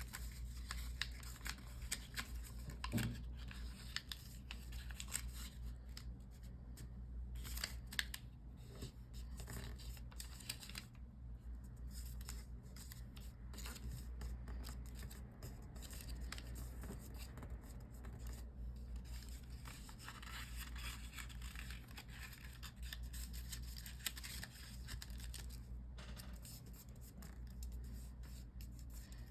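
Sheet of origami paper rustling and crinkling in the hands as it is folded and creased, in many short irregular scrapes, over a low steady hum.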